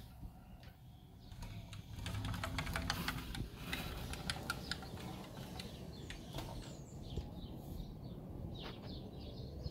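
Parakeets in a fruit tree: a flurry of sharp clicks and rustling as they move and feed, with short high chirps, over a low background rumble.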